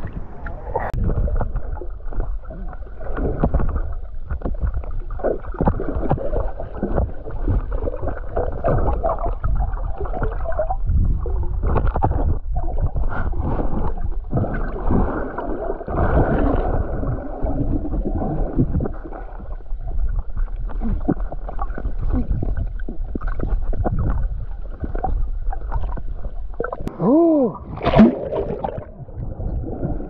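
Underwater sound picked up through an action camera's housing: a muffled, dull rumble of moving water with gurgling as the swimmer moves. A short warbling, pitched sound and a louder splash-like burst come near the end.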